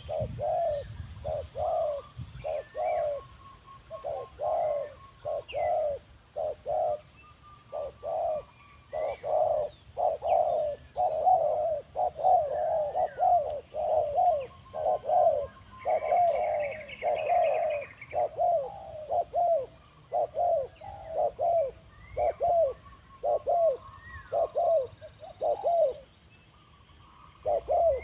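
Spotted dove cooing in a long, almost unbroken run of short repeated coos, pausing briefly a few times and once near the end. Small birds chirp faintly in the background, with a short burst of higher twittering in the middle.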